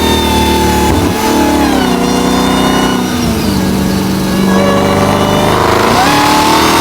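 Car engine revving hard: the pitch holds high, falls in two steps about one and three seconds in, then climbs again near the end.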